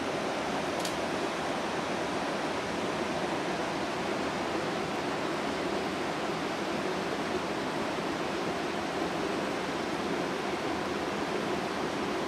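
Creek water rushing steadily over rocks and rapids.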